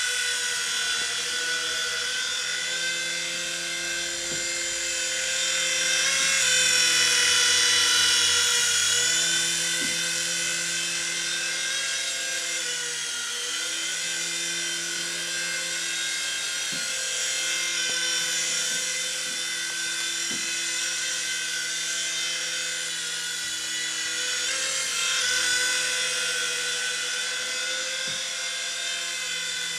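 Jamara EC135 DRF, a small electric coaxial RC toy helicopter, in flight: the high-pitched whine of its little electric motors and the whir of its rotors, the pitch drifting up and down with the throttle. It is loudest about six to nine seconds in.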